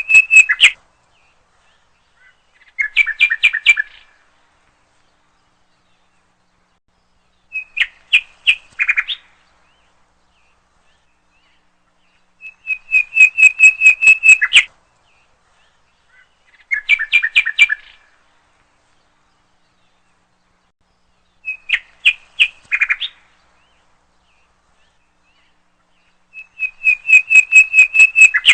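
A songbird singing in separate phrases of quickly repeated clear notes, each phrase lasting under two seconds, with pauses of a few seconds between. It alternates between a run of same-pitched notes and a shorter phrase that moves between two pitches.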